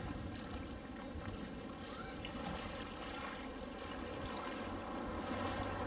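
Steady waterside ambience: calm estuary water lapping softly, with faint distant voices.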